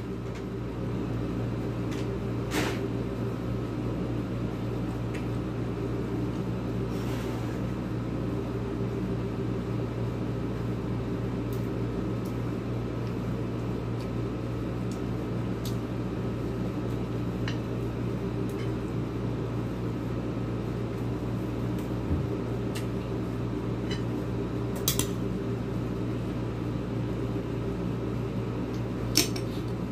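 A steady mechanical hum, like a fan or similar appliance running, fills a small room. Over it come a few short taps and clicks from eating at the table, with a spoon and fingers against a plate and bowl.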